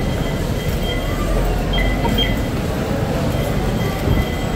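MRT Line 3 train running: a steady low rumble from the rail car, with short high squeaks from the wheels now and then.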